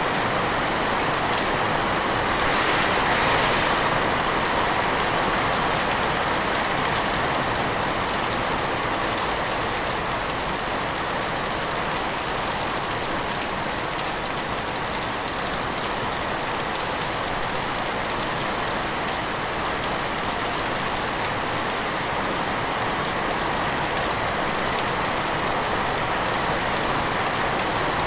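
Heavy rain falling steadily, an even dense hiss of many drops hitting surfaces, a little heavier about three seconds in.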